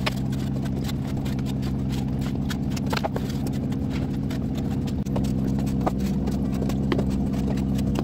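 Eggs being set by hand into a plastic automatic egg-turner tray, many light irregular clicks of shell on plastic, over a steady mechanical hum from the incubator's equipment.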